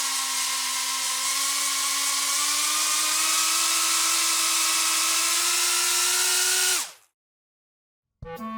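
Mini quadcopter drone's propellers spinning at speed: a steady buzzing whine with a hiss, its pitch creeping slowly upward, then dropping away as the motors spin down and stop about seven seconds in. A short burst of music starts right at the end.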